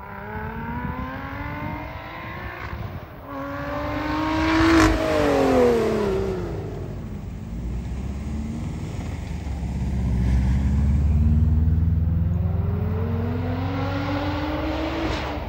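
Lotus Exige 410's supercharged V6 accelerating hard on track. The engine pitch climbs, breaks at a gear change about three seconds in, and climbs again to its loudest point about five seconds in. The pitch then falls away to a lower drone and rises again through the revs near the end.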